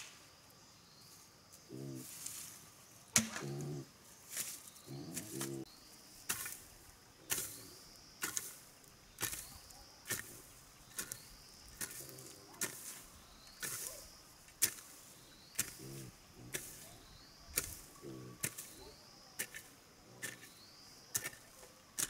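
Steady hammer blows, about one a second, each with a short metallic ring like a hammer driving nails. Doves coo softly between the blows.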